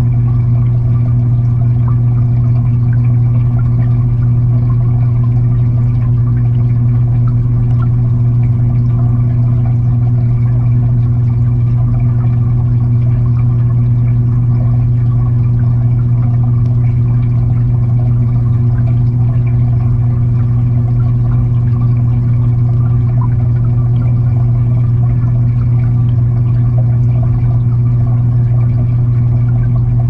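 Steady hum of an aquarium filter pump, heard underwater from inside the tank, with faint crackling of moving water over it.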